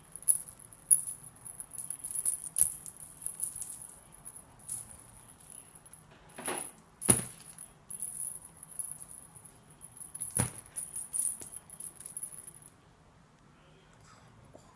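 A jingling cat toy being batted and shaken by a playing kitten, in irregular bursts of high jingling with a few sharp knocks. The jingling stops about two seconds before the end.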